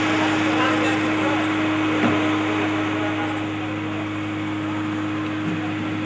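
Old jeep's engine running as it drives away, the noise slowly fading, over a steady low hum.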